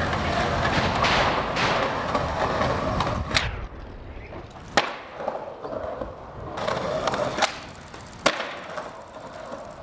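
Skateboard wheels rolling on concrete, a rough rumble that drops away about three seconds in. Three sharp clacks of the board hitting the ground follow, with quieter rolling between them.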